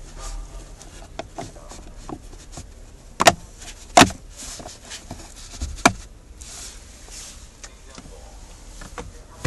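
Plastic glove box and trim of a car interior being refitted: a string of sharp clicks and knocks, the three loudest a little after three seconds, at four seconds and just before six seconds in.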